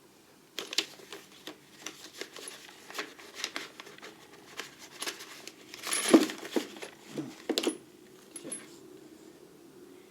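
Small metal tools, drill bits and lathe tool blanks, clinking and rattling against each other as they are handled and sorted in a toolbox drawer. There is an irregular run of clicks with a brief ringing now and then, loudest about six seconds in.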